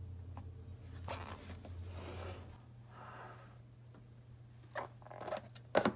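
Soft handling sounds of hands setting potato-dough balls into a plastic tray and lifting it, with a few sharp knocks near the end, the loudest just before it ends. A low hum runs underneath and stops about two and a half seconds in.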